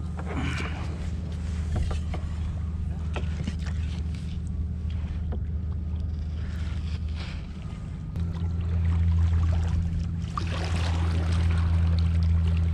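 Small outboard motor on a micro skiff running steadily at low speed, a constant low hum that gets louder about eight seconds in.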